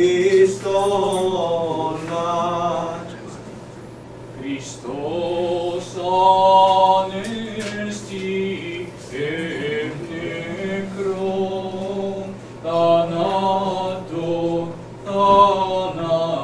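Unaccompanied Orthodox liturgical chant: voices singing a hymn in held phrases, with a brief lull a few seconds in.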